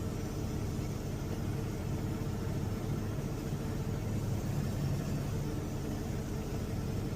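Semi truck's diesel engine running steadily at low revs while the truck is maneuvered slowly.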